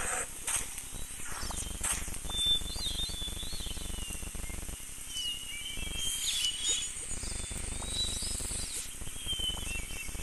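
Nature ambience: birds chirping in short whistled calls, a few times, over a steady high insect drone and a low rumble.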